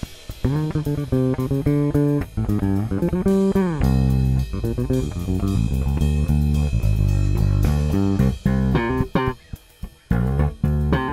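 Background music with guitar and bass over a steady drum beat.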